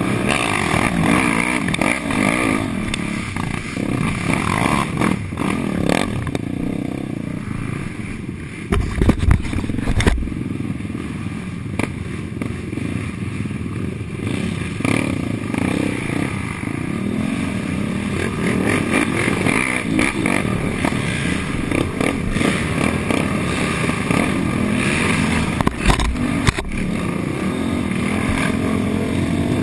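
Suzuki LT-R450 quad's 450cc single-cylinder four-stroke engine revving up and down as it is ridden hard, with other race quads' engines close by. A few heavy low thumps about nine seconds in and again near the end.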